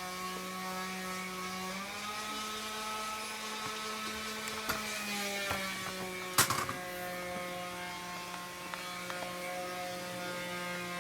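Steady electrical or machine hum in a workshop, dipping slightly in pitch about two seconds in and coming back a few seconds later, with a few light clicks and one sharp click about six and a half seconds in.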